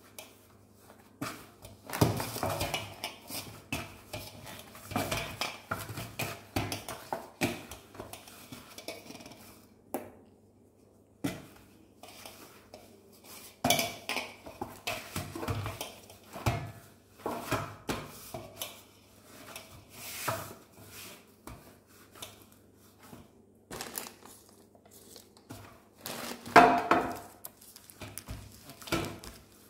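Hands kneading maida dough in a large stainless steel plate: irregular knocks and rattles of the steel plate as the dough is pressed and turned, with a short pause about a third of the way in and the loudest knock near the end.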